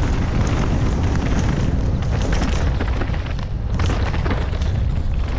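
Wind buffeting a helmet-mounted camera's microphone in a heavy, steady rumble as a downhill mountain bike rides a dirt and rock trail. Irregular clicks and rattles of the tyres and bike over the rough ground come through the rumble.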